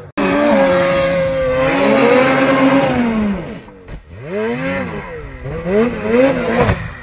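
Snowmobile engine running at high revs, its pitch held up and then swelling and falling. After a cut about four seconds in, a snowmobile climbing a steep snow slope revs in quick rises and falls as the throttle is worked.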